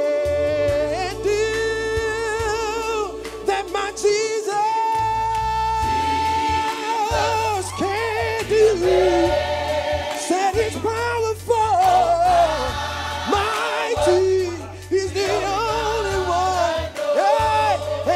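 Gospel choir singing with a male lead vocalist on a microphone, with a long held high note about four seconds in, over a low bass accompaniment.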